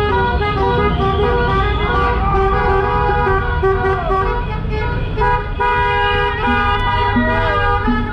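Several car horns honking at once in long, overlapping blasts over a steady rumble of traffic; another horn joins about five seconds in.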